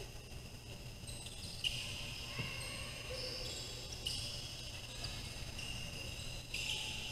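Basketball shoes squeaking on a hardwood court: high-pitched squeals that overlap and come and go every second or so, with a sharp knock about a second and a half in.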